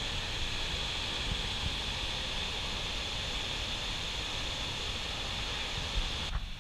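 Steady roar and hiss of Victoria Falls' water plunging into the gorge, with wind buffeting the microphone. It cuts off abruptly near the end.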